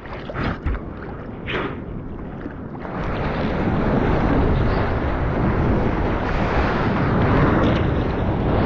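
Surfboard paddling and take-off in the ocean: a few splashes of hand strokes in the water, then from about three seconds in a loud steady rush of breaking whitewater and wind on the microphone as the board rides the wave.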